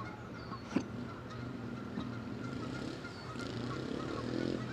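Geese honking, growing louder near the end, over a steady low hum, with one sharp click about three-quarters of a second in.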